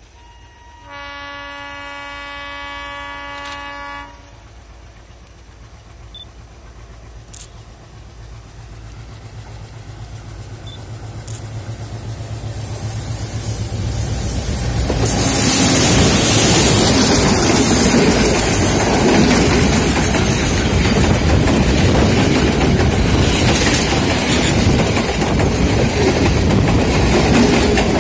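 Sri Lanka Railways M8-class diesel locomotive sounding its horn about a second in: a steady chord of several notes held for about three seconds. Then the train comes closer and grows steadily louder, passing close by about fifteen seconds in, and its carriages roll past loudly on the rails.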